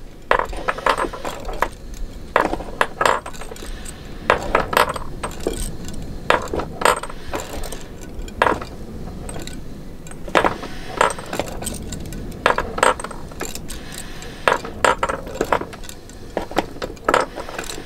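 Freshly zinc-nickel-plated nuts and bolts hung on wires clinking against each other and the container as they are jiggled to keep them moving in the passivate bath. Irregular light metallic clinks, often two close together, every second or so.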